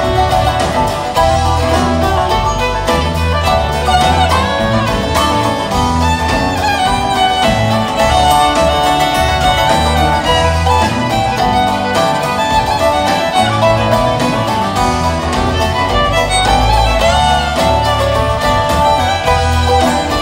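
Live bluegrass-style string band playing an instrumental passage, the fiddle prominent over banjo, acoustic guitar, upright bass and drums, with a steady beat.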